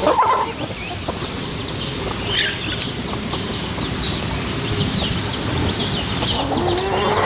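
Chickens in a farmyard: clucking, with many short, high chirps throughout and a rising call near the end.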